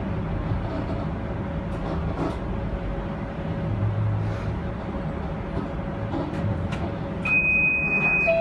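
Interior running noise of a Bombardier Flexity streetcar in motion: a steady low rumble with a faint steady hum. Near the end a loud, steady, high-pitched beep starts and holds.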